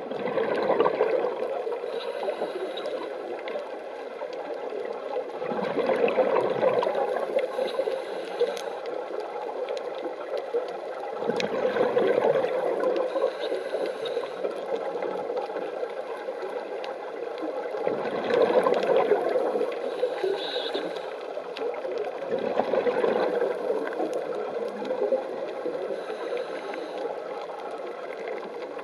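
Scuba diver's breathing heard through an underwater camera: five gurgling rushes of exhaled bubbles from the regulator, about every six seconds, over a steady underwater hiss.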